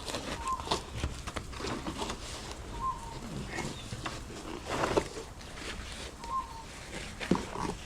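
Plastic and cardboard packaging being cut open and handled, with scattered knocks and rustling; the loudest knocks come about five seconds in and near the end. A short bird-like call repeats every two or three seconds in the background.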